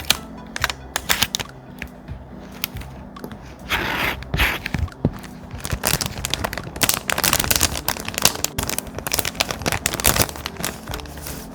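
Close-miked thick paper being handled for a scrapbook journal: crinkling, scraping and sharp crisp taps and clicks. There is a longer rustle about four seconds in, and a dense run of crackles through the second half.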